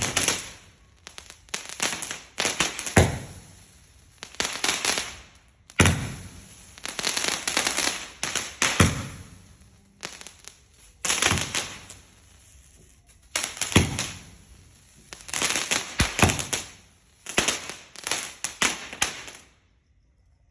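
Fireworks going off in a barrage: a sharp bang every second or two, each followed by a hiss that fades away. The bursts stop about nineteen and a half seconds in.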